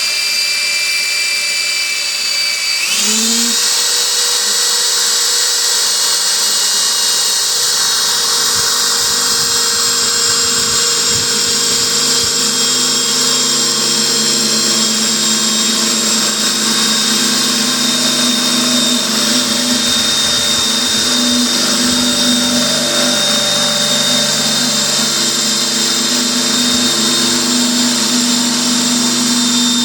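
Electric drill with a concrete bit boring through a ceramic pot, running steadily. Its whine rises in pitch about three seconds in and then holds.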